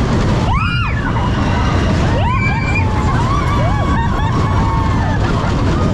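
Big Thunder Mountain mine-train roller coaster running, a loud steady rumble with wind. Riders whoop and scream over it in long rising-and-falling cries, one loud one about half a second in and several more overlapping in the middle.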